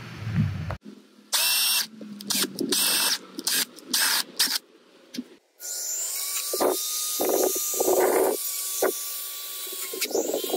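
Handheld rotary tool with a sanding drum, grinding at the edge of a hole in PVC pipe. For the first few seconds it comes in short chopped bursts, then it runs steadily with a high whine, surging louder each time the drum bites into the plastic.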